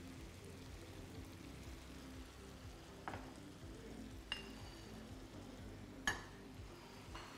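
Spaghetti in a frying pan on a gas burner, faintly sizzling and simmering as its added water cooks off under a heap of spinach leaves. Three light clinks of glass, utensils and crockery come about three, four and six seconds in; the middle one rings briefly.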